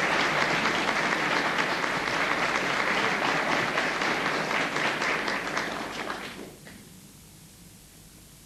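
Studio audience applauding, fading out about six and a half seconds in and leaving only a faint hiss.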